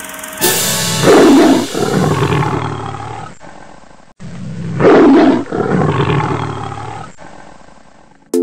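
Lion roar sound effect of a film-studio logo intro, played twice. Each roar comes in loud, swells a second time about half a second later, then fades away over about three seconds.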